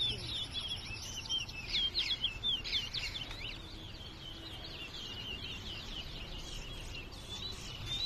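Caged towa towa songbirds singing in a song contest: quick runs of high chirps and whistled notes, thickest in the first few seconds, then sparser and softer.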